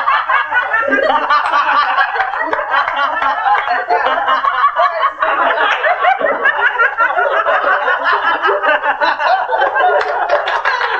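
A group of people laughing together, many voices overlapping without a break.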